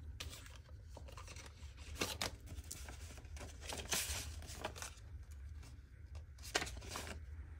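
Paper banknotes and plastic cash-envelope sleeves in a ring binder rustling and crinkling as the bills are pulled out and sorted by hand. The rustling comes in irregular short strokes, with the loudest about two seconds in, about four seconds in and between six and seven seconds in, over a steady low hum.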